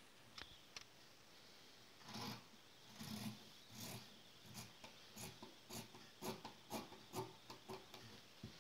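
Faint snipping of scissors cutting through folded fabric: a few softer sounds of the cloth being handled, then a run of quick snips, about two or three a second, through the second half.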